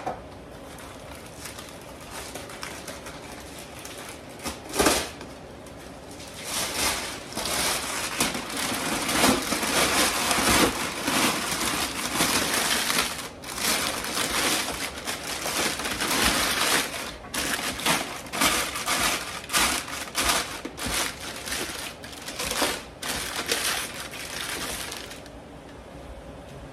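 Aluminum foil liner crinkling and crackling as it is unfolded and pressed into a roaster oven, starting about six seconds in and stopping shortly before the end.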